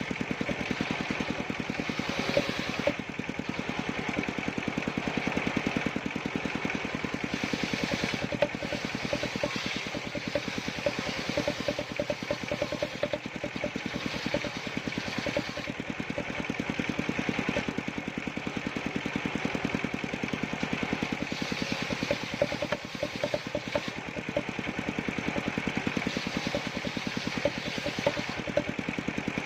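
The small combustion engine of a wood-cutting saw machine runs steadily at a constant speed, with a steady whine above the engine beat.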